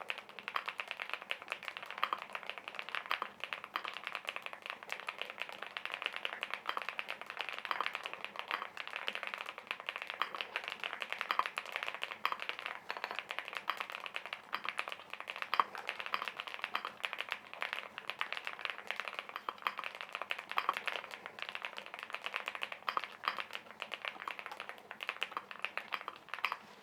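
Continuous fast typing on a Mechlands Blade-series gasket-mounted aluminium mechanical keyboard: a dense, unbroken run of keystroke clacks.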